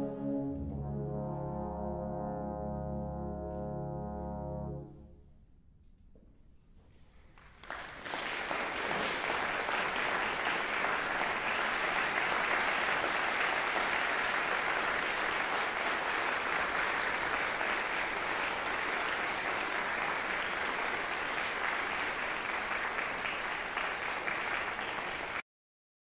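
A concert band holds its final chord, full in the brass with a low bass note under it, for about five seconds and then releases it. After a brief hush the audience breaks into steady applause, which cuts off abruptly near the end.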